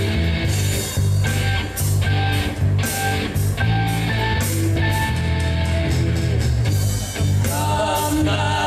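Live blues band playing: an electric guitar leads over bass and drums with regular cymbal strokes. A singer's voice comes in near the end.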